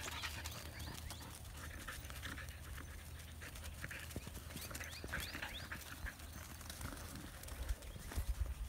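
Sheep and husky moving about on dry grass and dirt: soft scattered hoofsteps and rustles, over a steady low wind rumble on the microphone.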